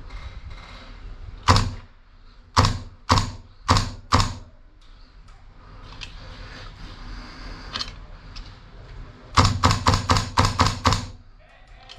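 Airsoft guns firing sharp single shots: one, then four more at about two a second, then a fast string of about eight shots near the end.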